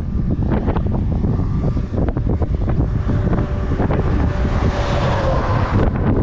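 Strong wind buffeting the microphone: a heavy, continuous low rumble broken by short gusty pops.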